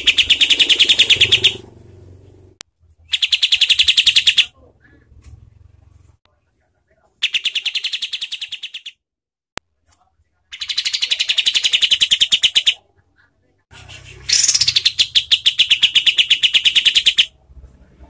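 Kapas tembak (olive-winged bulbul) singing its harsh, rapid shot-like song: five bursts of fast repeated notes, each one and a half to three seconds long, separated by short pauses. The last burst opens with a quick rising and falling sweep before the rattle.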